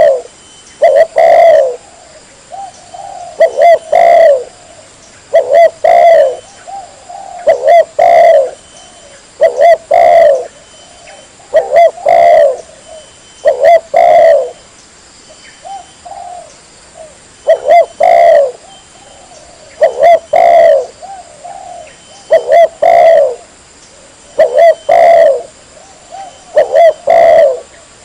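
Spotted dove cooing: a short phrase of several mellow notes, repeated about once every two seconds.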